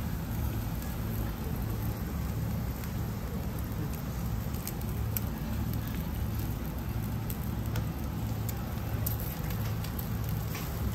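Seafood sizzling on a grill, with scattered small pops and crackles, over a steady low hum.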